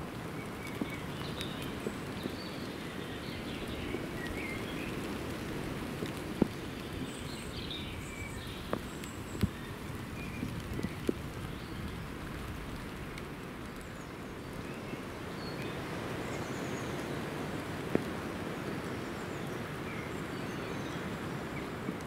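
Steady gentle rain falling in woodland, with a few sharp taps and faint high bird chirps scattered through the first half.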